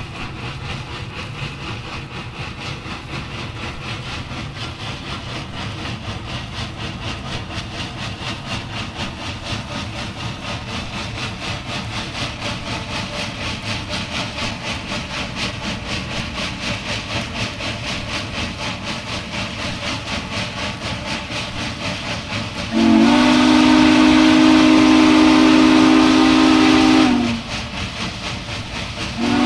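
Duluth, Missabe & Iron Range No. 225, a 2-8-8-4 Yellowstone articulated steam locomotive, running at speed with rapid, even exhaust beats over the rumble of the train. About 23 seconds in, its steam whistle sounds one loud blast of several tones for about four seconds, and a second blast starts just before the end.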